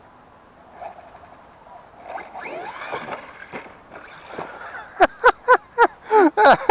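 Brushless electric motor of a JLB Racing Cheetah RC monster truck whining, rising and falling in pitch as it speeds up and slows, about two seconds in. In the last second and a half it is drowned out by a loud run of short calls, each falling in pitch, about four a second.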